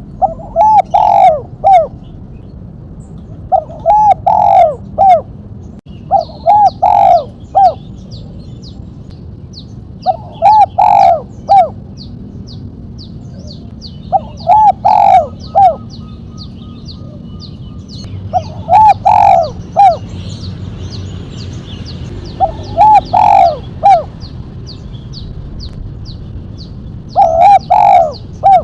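Spotted dove (tekukur) singing the 'mercik' style of song: eight coo phrases, each a quick run of notes lasting about a second, repeated about every four seconds. A faint rapid high ticking runs behind it.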